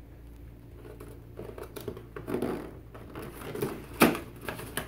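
Cardboard box being handled and its end flap worked open by hand, with light rustling and scraping of the card and one sharp click about four seconds in.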